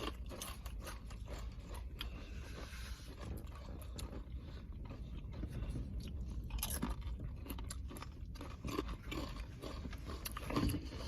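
Close-up chewing and crunching of food, with scattered sharp clicks and light scrapes.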